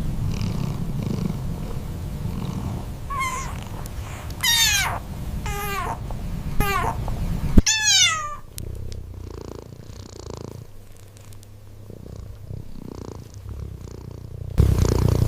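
Cat purring with a low rumble, and about five high meows that each fall in pitch, about three to eight seconds in. After that the purring goes on more quietly, swelling again near the end.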